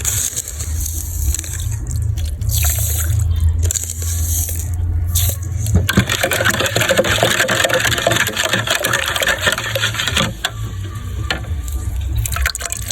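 Water running and pouring into a container, strongest for about four seconds from roughly halfway through, with splashes and clinks before it and a low hum underneath.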